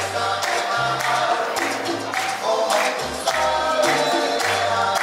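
Music with a steady beat, a bass line and singing.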